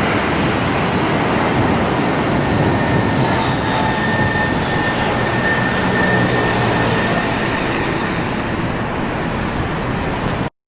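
Airbus A330-300 jet engines running at takeoff power: a loud, steady roar with a faint whine in it. It cuts off abruptly near the end.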